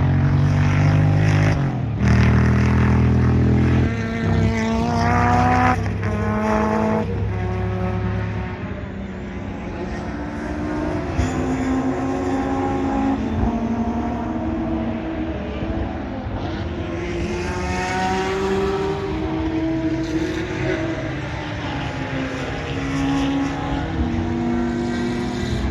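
Historic racing cars' engines at full throttle going past on the track, one after another: the pitch climbs, drops at each gear change and climbs again. The loudest car passes in the first eight seconds; quieter cars accelerate through the gears after it.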